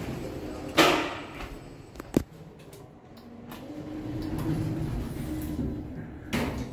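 Elevator door and drive sounds. A loud knock comes about a second in and a sharp click near two seconds. From about three and a half seconds a low motor hum with a steady tone builds as the doors close and the car starts moving, and another knock comes near the end.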